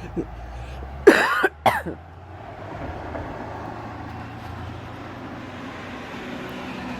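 A person coughs twice in quick succession about a second in, a short loud cough and then a shorter one. After that there is the steady hum of passing road traffic.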